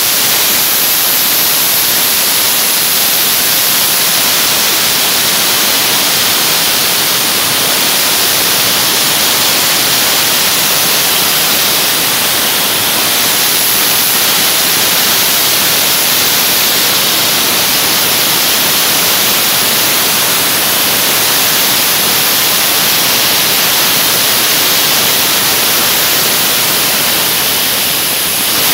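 Dry ice blasting gun firing a steady jet of compressed air and dry ice pellets through a long flat nozzle, a loud, even hiss as it blasts limescale off stainless steel.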